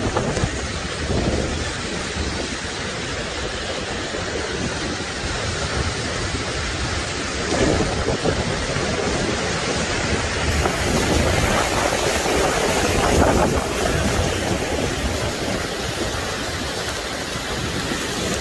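Steady rushing noise of a tropical cyclone's storm: heavy rain and wind, with floodwater running across the road, and a low rumble underneath, swelling slightly a few times.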